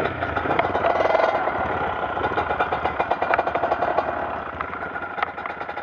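Trail motorcycle engine running at idle with a steady, rapid pulsing, slowly fading away toward the end.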